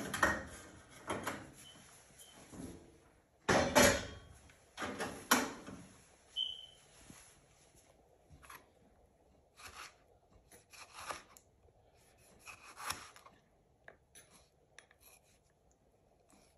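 Kitchen handling noises: several seconds of rubbing and scraping, then sparse short knocks from a knife slicing a tomato on a plastic cutting board.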